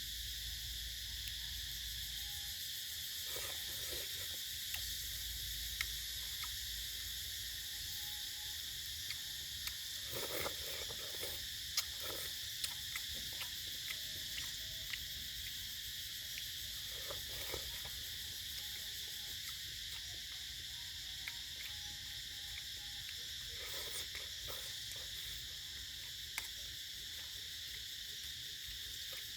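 Steady chorus of crickets and other insects chirring, with a short low animal call repeating about every seven seconds and a few small clicks.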